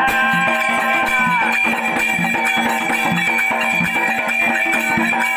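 Instrumental break in a Marathi folk song: held melody notes over plucked strings and a steady drum beat.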